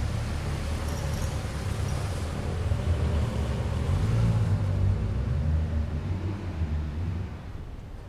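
Low engine rumble of a motor vehicle passing, swelling to its loudest about four to five seconds in and fading away near the end.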